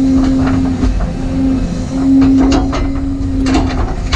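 Volvo tracked excavator's engine and hydraulics running with a steady hum, heard from inside the cab, with a series of knocks and clunks as the bucket sets down a timber crane mat.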